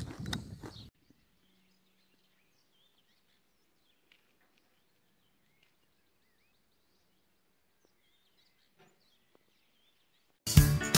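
A noisy stretch cuts off abruptly about a second in. Near silence follows, with a few faint bird chirps. Strummed guitar music starts near the end.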